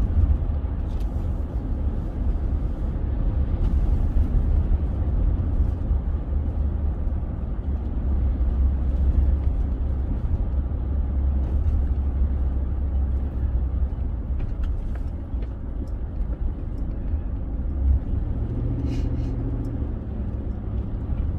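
Steady low rumble of a car's engine and tyres on the road, heard from inside the cabin while driving, with a slightly stronger low hum near the end.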